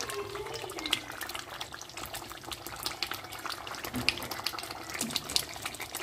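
Thick ragù bolognese of tomato and minced meat simmering in a pot, with irregular small pops of bubbles bursting at the surface over a steady low hiss.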